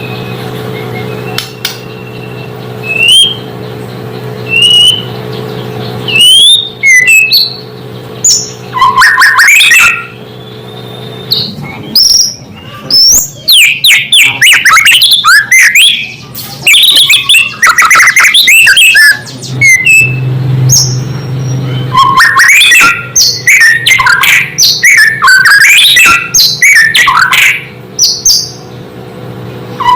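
White-rumped shama (murai batu) singing: a few separate whistled notes at first, then from about six seconds in a loud, fast, varied run of whistles and chattering phrases.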